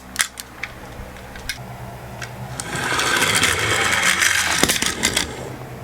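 Toy minicars rolling down a slope, their small wheels making a dense rattling whir that starts about two and a half seconds in and stops after about two and a half seconds. A few sharp clicks come in the first second.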